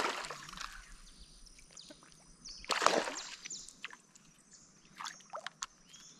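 Water splashing as fish strike at a floating fishing lure and miss: a splash right at the start and a louder one about three seconds in. A few sharp clicks follow near the end.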